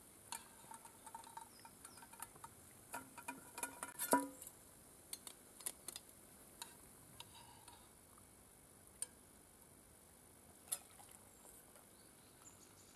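Light, scattered clinks and scrapes of a spoon against metal camping cookware, with one louder metal clink about four seconds in that rings briefly.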